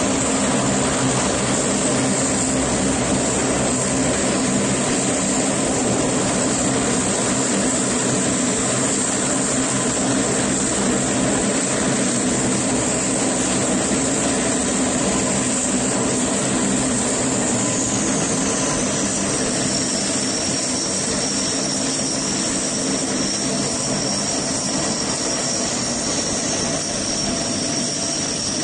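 Lockheed P-3C Orion's four Allison T56 turboprop engines running at taxi power, a steady propeller drone under a high turbine whine. The whine drops in pitch about two-thirds of the way through as the aircraft taxis close past.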